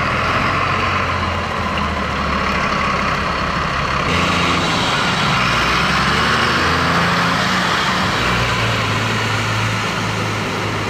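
Heavy fire engine running, a low engine note under a steady rushing hiss of water. The engine note shifts about four seconds in and again about eight seconds in.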